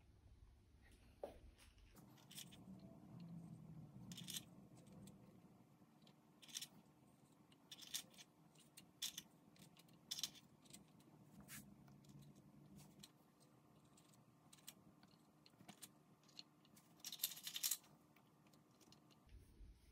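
Faint scattered clicks and taps of dry tea biscuits knocking against each other and a ceramic bowl as they are picked out and laid on the soft filling in a glass dish. Near the end a short, louder run of crackling snaps as a biscuit is broken to fit the last gap.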